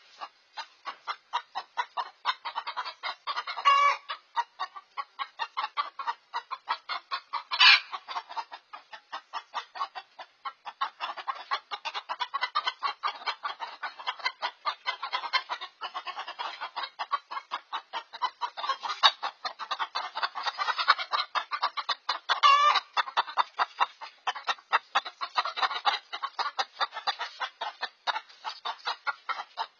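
Chickens clucking rapidly and without a break, about four clucks a second, with three louder squawks along the way: the alarm clucking of hens with a bobcat stalking their coop.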